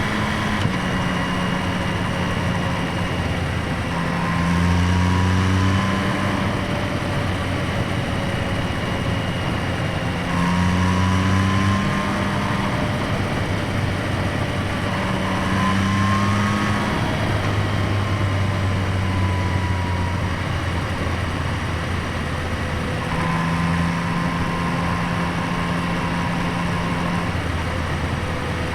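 Yamaha MT-09's 890 cc inline-three engine running, heard as intake noise from the air box and exhaust note together. Engine speed rises for a second or two about four times, a few seconds apart, then drops back to a lower steady speed.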